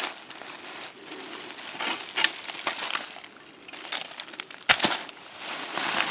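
Dry leaves and forest-floor debris rustling and crunching in irregular bursts as a hand digs through them and lifts out a rusted round metal ring. Two sharp knocks come close together a little over two-thirds of the way in.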